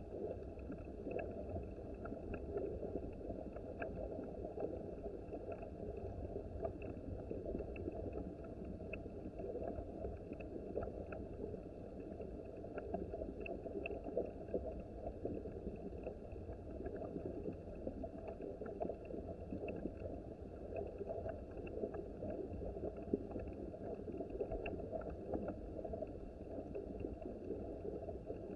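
Small mountain stream babbling steadily over rocks, with a faint steady high-pitched band and small ticks behind it.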